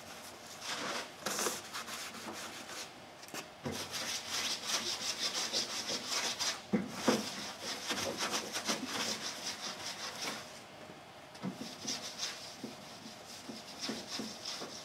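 A rag rubbing over a fiberglass sliding hatch in quick, light back-and-forth wiping strokes with short pauses, wiping on paint-prep solvent to lift any wax before sanding.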